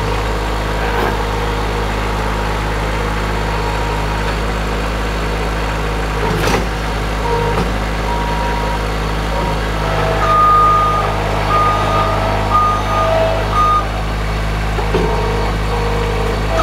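Skid steer loader's engine running steadily, with its backup alarm beeping repeatedly in the second half as the machine reverses. A single knock about a third of the way through.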